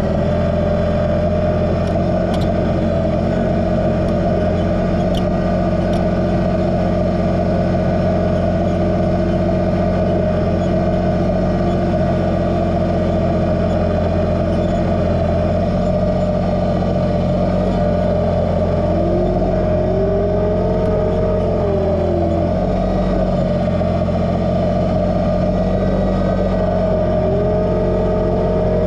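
Kubota BX2380 sub-compact tractor's three-cylinder diesel engine running steadily under load, heard close up from the tractor. A wavering tone rises and falls twice over the steady drone, about 19 s and 26 s in.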